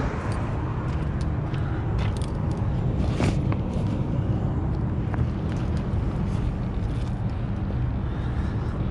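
A vehicle engine running steadily at idle, a low even rumble, with scattered light clicks and knocks over it, the sharpest about three seconds in.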